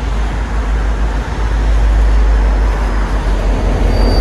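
MBTA commuter train passing directly below, its diesel locomotive's engine giving a heavy low rumble that swells as it comes underneath, mixed with steady highway traffic noise. A short high-pitched squeal comes right at the end.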